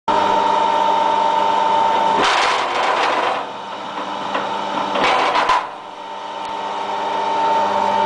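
Electric wire stripping machine running with a steady motor hum and whine, broken twice, about two seconds in and again around five seconds, by a rough grinding rasp as aluminium cable is fed through its rollers and blades.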